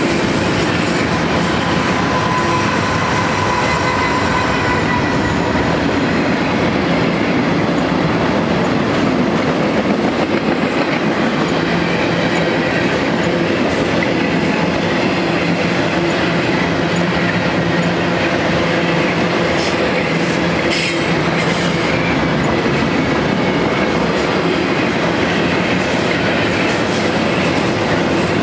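Loaded double-stack container well cars of a BNSF intermodal train rolling steadily past: a continuous rumble and clatter of steel wheels on the rails.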